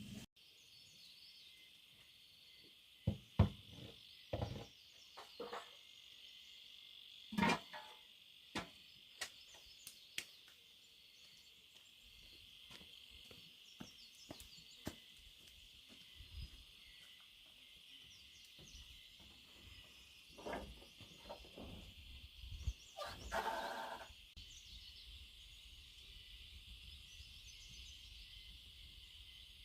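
Steady high-pitched insect chorus, with a run of scattered knocks and thuds in the first third and a longer, louder sound a little after the middle.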